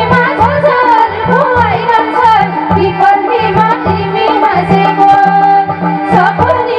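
Instrumental interlude of live Nepali folk dohori music: a hand drum keeps a steady, driving rhythm under a wavering melody line.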